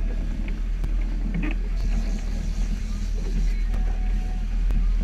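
Motorboat under way: a steady low engine and hull rumble, with a few faint clicks.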